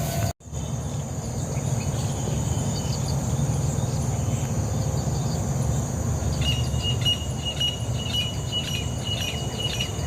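Outdoor ambience of insects, cricket-like, trilling steadily over a low rumble. About two-thirds of the way in, a second, lower-pitched steady chirring joins with rapid short ticks.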